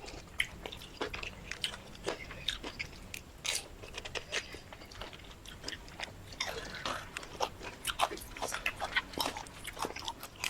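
Close-up eating sounds: a person chewing and biting into food, with many irregular wet clicks and crunches from the mouth.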